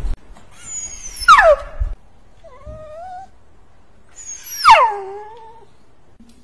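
A dog giving two loud, high-pitched cries that fall steeply in pitch, about a second in and again near the five-second mark, with a fainter short whine between them.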